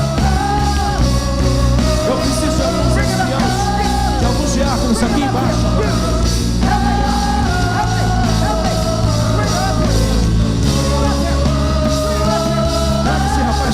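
Loud worship music with singing: a melody of long held notes stepping up and down over a steady heavy bass, with many voices singing and calling out over it.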